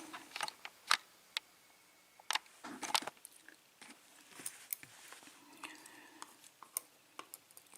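Scattered light clicks and taps of small lock pins being handled and moved about on a work surface.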